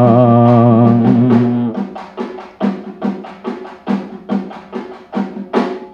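A male singer holds the last note of a Telugu folk-song refrain, which stops a little under two seconds in; then a drum plays a quick, even rhythm of about five beats a second as an instrumental interlude.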